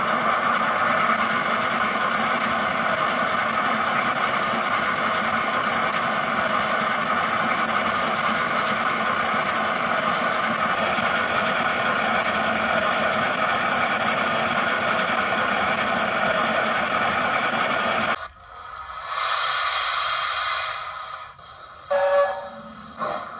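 Hornby P2 model steam locomotive's onboard sound decoder playing steam-engine running sounds through its small speaker as the model runs on rollers. The steady sound stops abruptly about 18 seconds in and is followed by a hiss lasting about two seconds, then a few short tones near the end.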